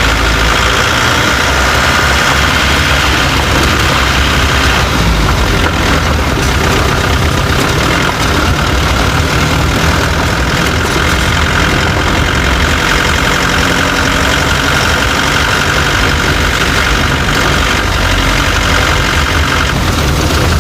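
Chevrolet Tavera on the move, heard through a microphone mounted underneath beside a wheel: steady engine and road noise with a repeated khat-khat knocking from the underside, a fault whose cause mechanics have not been able to find.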